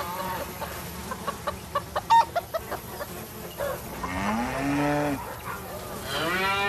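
Hens clucking in a run of short clucks, then cows mooing: one long moo about four seconds in and a louder, longer one near the end.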